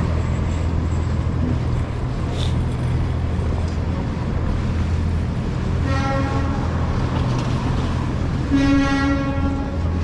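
City street traffic with a steady low engine rumble, cut through by a vehicle horn honking twice: a short honk about six seconds in and a longer, louder one near the end.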